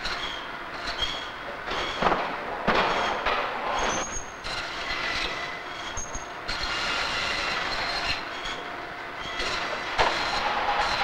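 Band saw running and cutting through frozen fish, with a steady mechanical noise and a high squeal that comes and goes. A few sharp knocks are heard, about two seconds in and again near the end.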